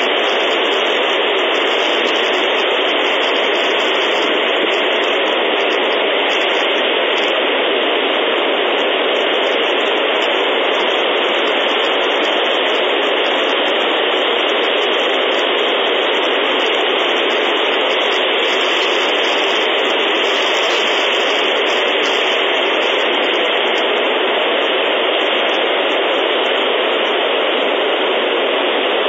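Steady, even hiss of static noise on a wildlife nest camera's audio feed, unchanging throughout.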